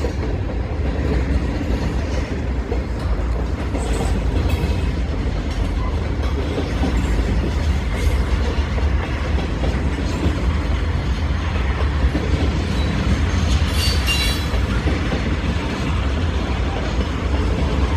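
Norfolk Southern mixed freight train's cars rolling past, a steady rumble of wheels on rail, with a brief high-pitched squeal about fourteen seconds in.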